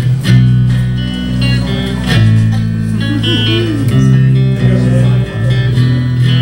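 Live band playing without singing: strummed guitar chords over a bass line.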